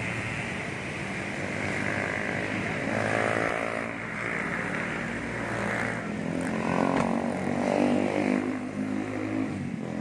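Street traffic with motorcycle engines passing, their engine note swelling and rising in pitch as they go by, over a steady high-pitched hiss.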